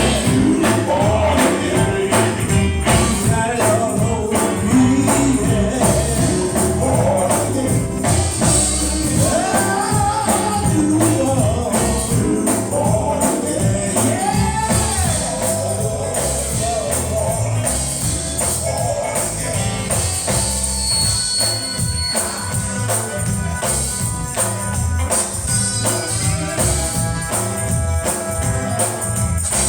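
Live gospel music: singing over a band, with a tambourine shaken and struck on the beat. The singing is plainest in the first half, and the instruments carry more of the later part.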